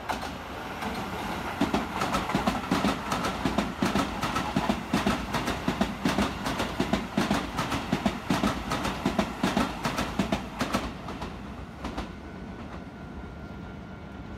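Keisei Line electric commuter train passing through the station at speed: a steady rumble with its wheels clacking rapidly over the rail joints, fading away as the train recedes.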